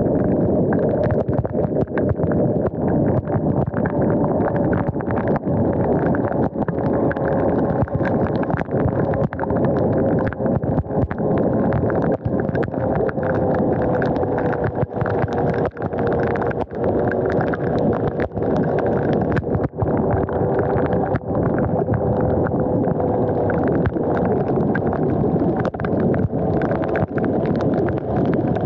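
Wind rushing over the microphone as an electric dirt bike rides on a wet road in the rain. Under the noise runs a steady whine from the bike's drivetrain that slowly drops in pitch.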